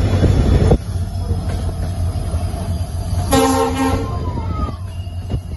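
Passenger train running with a steady low rumble, and one short blast of the diesel locomotive's horn a little past three seconds in. The louder running noise cuts off suddenly just before the first second.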